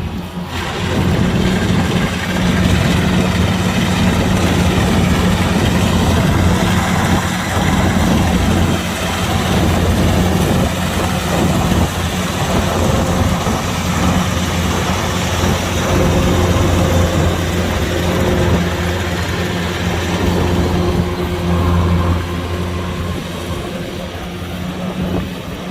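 Kubota DC-105X combine harvester running steadily: a constant low engine hum over a dense mechanical noise of its working machinery, easing off slightly near the end.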